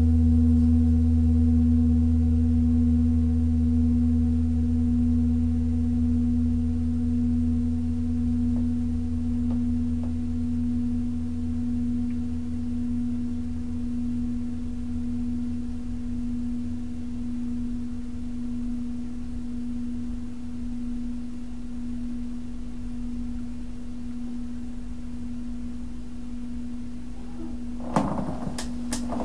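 Large brass singing bowl resting on an open palm, ringing with a long, slowly fading hum that wavers in level, its higher overtones dying away first. About a second before the end, a brief clatter of knocks.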